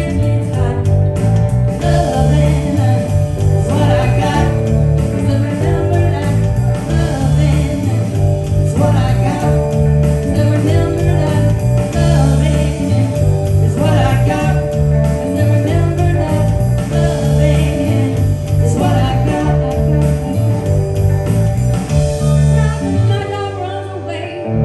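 Live band playing a song with a singer: strong bass notes under a steady beat, with sung lines on top.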